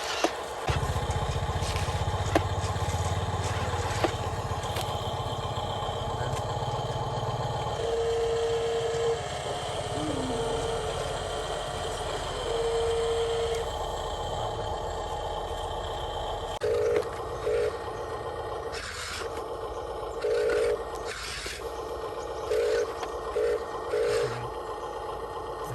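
Small electric motors and gears of radio-controlled trucks running, with a low hum for the first several seconds. Over this comes an intermittent electronic beep on one steady pitch, in long tones and then in quick clusters near the end.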